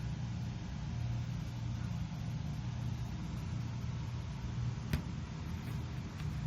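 A steady low mechanical hum, with a single sharp click about five seconds in.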